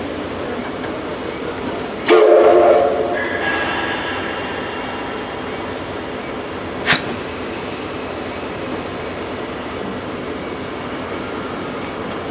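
Steam locomotive whistle sounding one short blast about two seconds in, dying away over the next two seconds, over a steady hiss. A single sharp clank follows about five seconds later.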